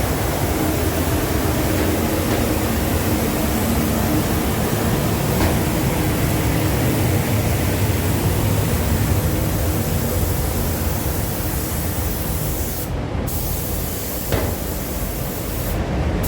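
Paint spray gun hissing steadily as it lays on the first coat of clear over fresh paint, over a low rumble of the spray setup, with two short breaks in the hiss near the end.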